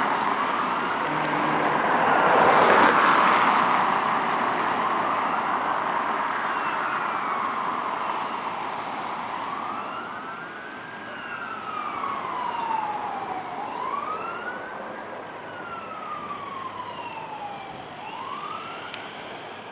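Fire department vehicle siren wailing in a repeated rise and fall, a quick climb then a slower drop about every four seconds, fading as the unit drives away. A vehicle passes close about two to three seconds in.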